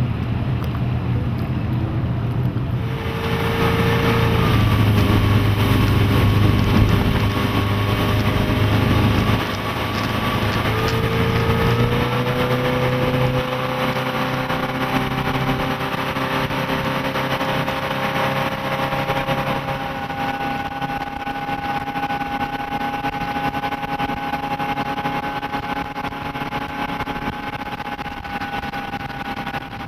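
The MerCruiser 5.7-litre V8 sterndrive engine of a 1999 Maxum 2100 SR bowrider running under way, over a rush of water and wind. Its pitch climbs as it accelerates about three seconds in and again around ten seconds in, then holds steady at speed.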